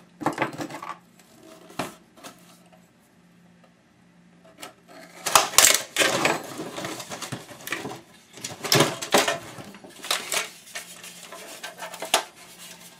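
Black plastic enclosure of an external hard drive being pried apart by hand: a few sharp clicks, a short pause, then a long run of clicking and scraping from about five seconds in as the shell halves come apart.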